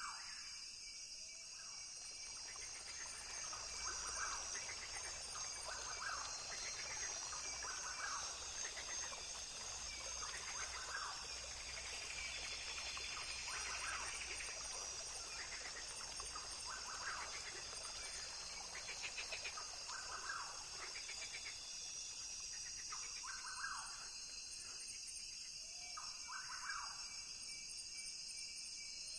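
Rainforest ambience: a steady high-pitched insect chorus with short bird calls repeating every second or two, and a denser buzzing call swelling in the middle.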